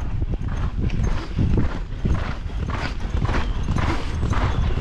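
Hoofbeats of a thoroughbred racehorse galloping on a dirt training track, a quick uneven drumming of knocks, over a low rush of wind on the microphone.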